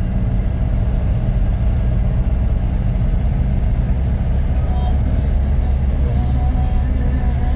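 Engine of an old truck running steadily under way, a continuous low drone heard from inside the cab.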